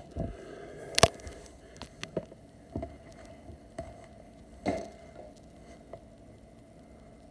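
A single sharp crack about a second in, the discharge of a Benjamin Maximus pre-charged pneumatic air rifle, followed by a few softer clicks and knocks of the rifle being handled.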